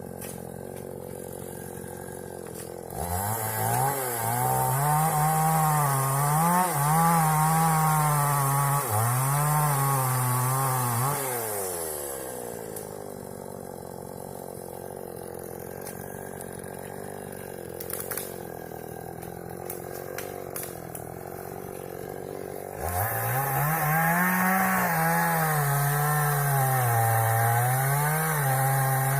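Two-stroke chainsaw cutting into an albizia (sengon) trunk: it idles, runs at full throttle for about eight seconds with its pitch wavering as the chain bogs in the wood, drops back to idle for about ten seconds, then goes back to full throttle near the end.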